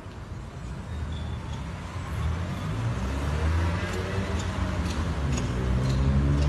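A van's engine running and growing steadily louder as the van drives closer.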